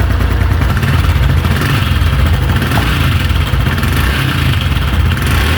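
Honda Biz 110i's small single-cylinder four-stroke engine running, with a clattering from inside the engine as if something were loose in it. It is the cam chain knocking, the sign of a worn cam-chain tensioner.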